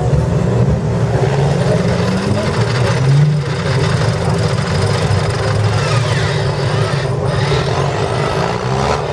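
Off-road trial 4x4's engine running hard under load, the revs rising and falling, loudest about three seconds in.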